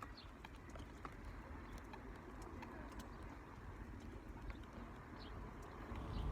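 Faint birdsong: a pigeon cooing, with a few short high chirps from other birds, over a low rumble of wind.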